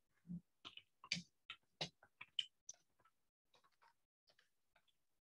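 Faint, irregular clicks and taps, a dozen or so in the first three seconds, then fewer and fainter ones.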